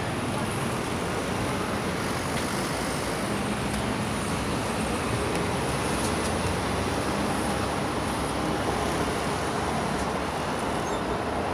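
Steady road traffic: cars and other vehicles passing on a busy road, a continuous rush of tyre and engine noise with a low engine hum running through it.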